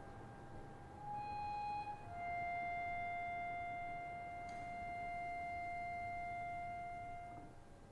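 Slow solo instrumental music: a single instrument holds long, steady notes one after another, a short one about a second in, then one lasting about five seconds that fades near the end.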